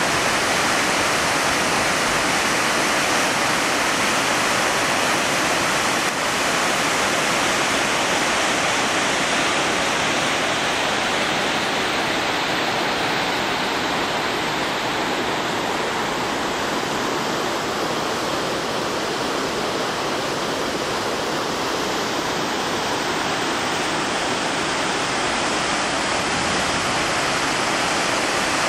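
Whitewater cascade of a mountain creek rushing steadily over rocks, slightly softer midway.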